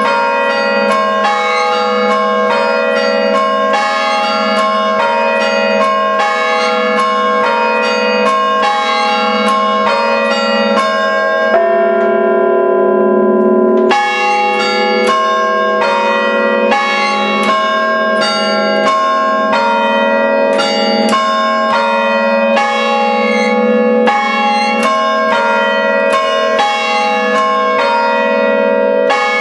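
Five church bells in a tower chimed by hand through rope pulls, struck in a quick rhythmic pattern of about three or four strokes a second, their tones ringing on together. About twelve seconds in, the striking stops for about two seconds while the bells hum on, then starts again.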